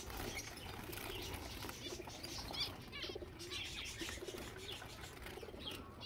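Faint, scattered chirps of small cage birds, with a few low dove coos and a light rustle of dry grass nesting material being pushed into the cage.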